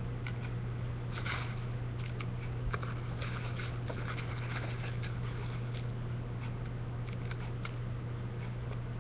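Steady low hum throughout, with faint scattered crackles and rustles of loose pipe tobacco being dropped a pinch at a time into a pipe bowl.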